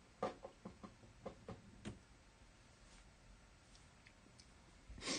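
Light clicks and taps from cards and cardboard blaster boxes being handled and set down on a table: a quick run of about eight in the first two seconds, then one louder knock near the end.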